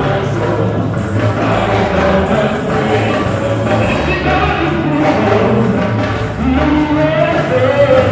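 Choir singing a hymn with accompaniment, many voices together over a steady low instrumental backing.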